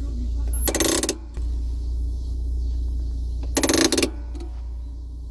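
Fiat Uno handbrake lever worked twice, each time a quick run of ratchet-pawl clicks lasting about half a second, the two about three seconds apart, over a steady low rumble.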